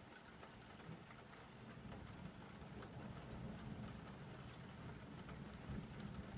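Rain falling steadily with small drip ticks, under a low rumble of distant thunder that builds from about two seconds in. Faint overall.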